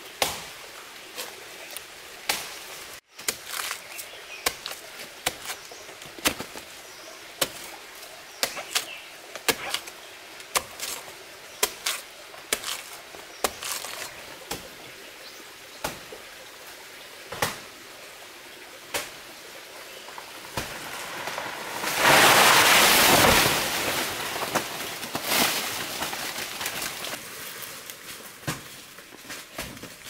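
Sharp knocks and snaps at irregular intervals, roughly one a second, in forest undergrowth. About 22 seconds in comes a loud rustling burst lasting about three seconds, which slowly dies away.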